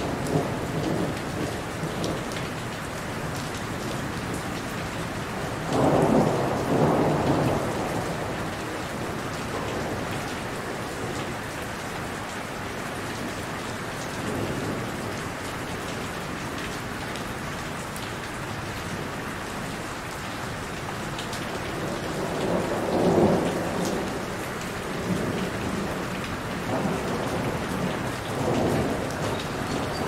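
Heavy rain falling steadily, with thunder rumbling twice: once about six seconds in and again about three-quarters of the way through.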